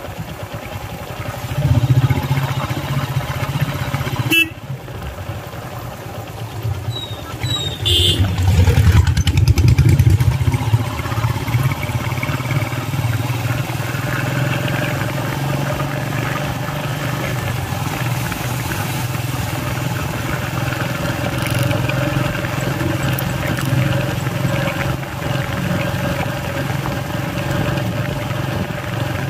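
Steady engine hum and road noise from a vehicle driving along a paved road. Louder swells about two seconds and about eight seconds in come from oncoming motorcycles and cars passing close by.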